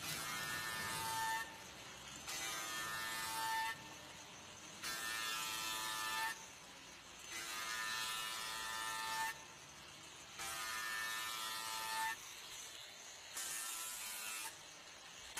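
Arc welding in repeated bursts of buzzing hiss, each about a second and a half long, coming about every two to three seconds with short pauses between them.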